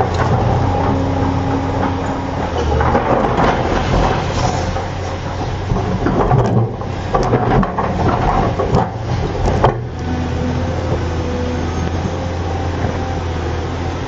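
Tracked excavator's diesel engine running steadily under load, with brief hydraulic whines, while its bucket shoves a large boulder that grinds and scrapes over rocky ground.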